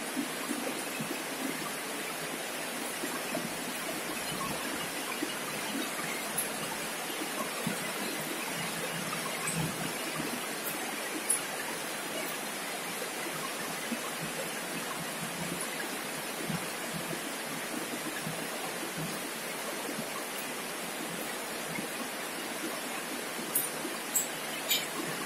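Steady rushing water noise, with a few faint ticks near the end.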